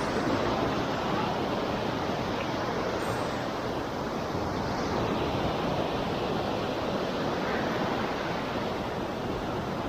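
Steady rush of ocean surf, with wind blowing on the microphone.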